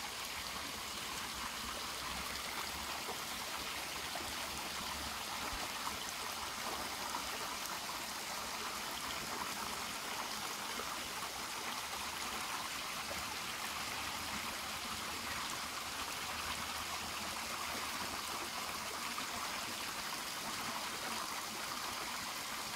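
A small stream of rainwater runoff trickling and splashing down an earth bank on its way under a dirt road. The sound is a steady rush of running water.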